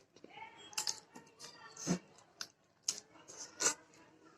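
Close-miked eating sounds of chapati with chicken gravy being chewed: wet mouth smacks and sharp clicks at uneven intervals, a few each second.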